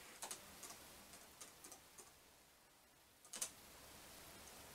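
Laptop keyboard being typed on in scattered, faint keystrokes, with a louder short burst of keys about three and a half seconds in.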